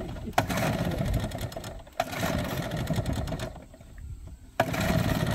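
Small two-stroke outboard motor running, its sound twice dropping away and coming back suddenly.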